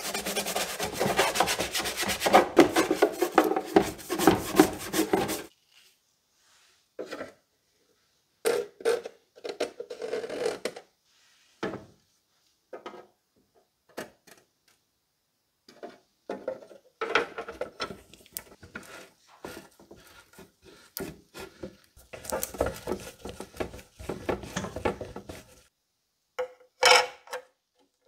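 Gloved hands scrubbing a clear plastic gumball container in soapy water, a steady wet rubbing for about five seconds. After that comes a run of separate short rubs and knocks as the plastic container is handled, with a brief louder clatter near the end.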